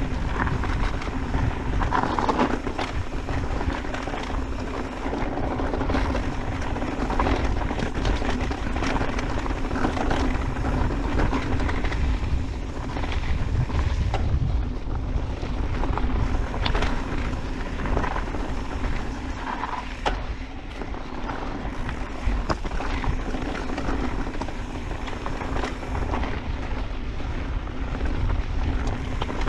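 Wind buffeting the camera microphone over the steady rumble of an Orbea Wild FS electric mountain bike's tyres rolling over rocky dirt trail. Occasional knocks and rattles come from the bike bouncing over stones.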